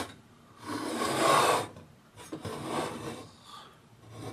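Wilesco D4 toy steam engine's sheet-metal base scraping across a tabletop as it is turned by hand, with rubbing and handling noises. There is one loud scrape about a second in, then a quieter, longer rub.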